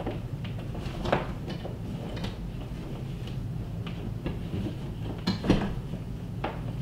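Irregular light clicks and knocks of cables being handled and pulled through the wall behind a wall-mounted TV, with a sharper knock about five and a half seconds in.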